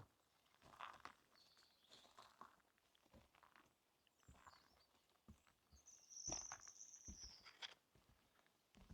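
Footsteps on a forest path, faint and uneven, with a bird giving one high, drawn-out call about six seconds in and a couple of short chirps early on.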